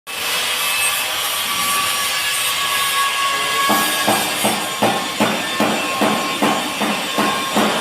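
Background music: a steady hissing intro with faint held tones, then a drum beat coming in about halfway, about two and a half beats a second.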